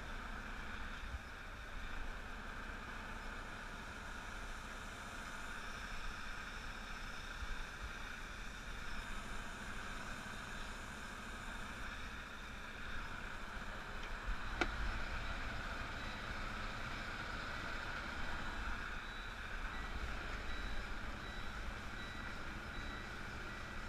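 Semi truck's diesel engine running steadily at low speed, heard from inside the cab while the tractor-trailer reverses. A single sharp click about halfway through, and a faint repeating beep near the end.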